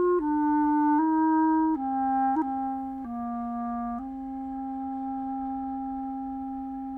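Solo clarinet playing a slow phrase of held notes that mostly step downward. It ends on a long note held for about three seconds.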